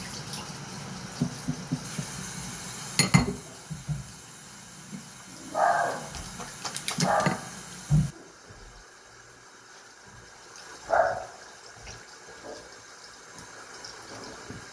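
Bathroom tap running into a sink while hands are washed, with a few sharp knocks and clatters; the running water stops abruptly about eight seconds in.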